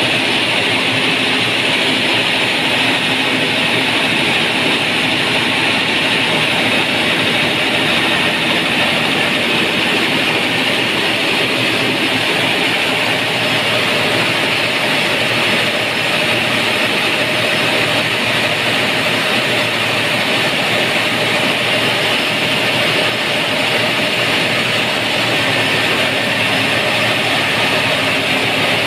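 Cummins diesel engine of a standby generator set running steadily at constant speed, loud and even, with its fan drive belt newly replaced and the tensioner removed.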